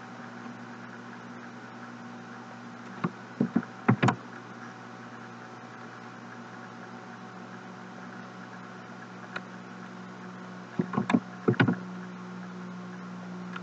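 Computer mouse clicks, a few in quick succession about three seconds in and another cluster near the end, over a steady low hum.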